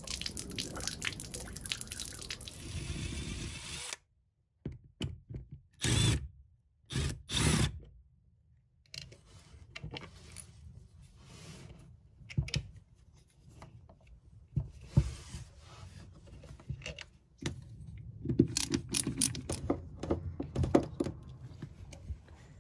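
Water running out of a camper's fresh-water tank drain tube and splashing onto concrete for the first few seconds. After a few short bangs, an old Shurflo water pump is handled and worked loose from its mount: scattered knocks, clicks and rubbing, busier near the end.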